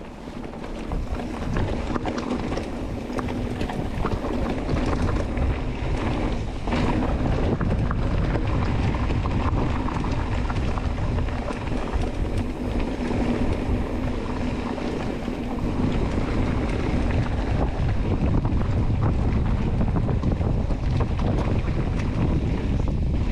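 Wind buffeting the microphone while riding a mountain bike downhill, building over the first two seconds and then staying steady, with scattered clicks and knocks.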